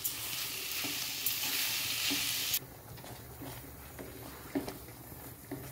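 Chana dal and sugar sizzling in a hot stainless steel pan while being stirred with a spatula, as the sugar cooks into the puran filling. The sizzle cuts off suddenly about two and a half seconds in, leaving soft scrapes and scattered taps of the spatula against the pan.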